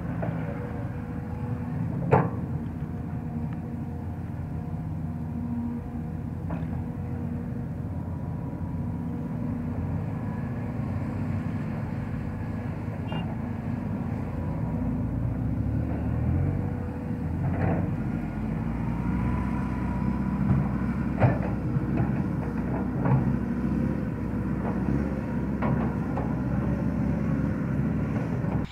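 Sumitomo crawler excavator's diesel engine running steadily as it digs and swings, with a few sharp knocks along the way.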